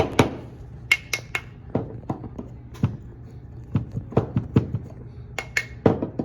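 Irregular clicks and clacks of metal espresso equipment being handled while a shot is prepared, a few with a brief metallic ring, over a steady low hum.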